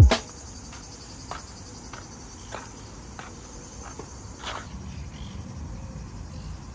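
Insects chirring steadily at a high pitch, with faint irregular ticks about once a second and a short thump right at the start.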